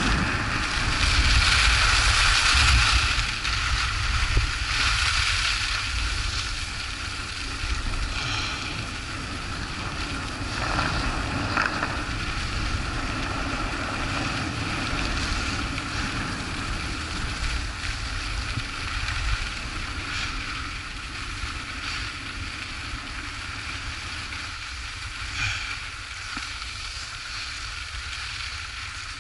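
Skis running and turning on groomed snow, a steady scraping hiss of the edges on the packed surface, with wind buffeting the microphone as a low rumble underneath. Loudest in the first few seconds, then steadier.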